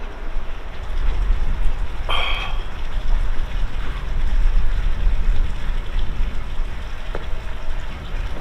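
Steady rushing noise with a heavy low rumble, typical of wind buffeting the microphone on an open boat deck, with a brief sharp squeak about two seconds in.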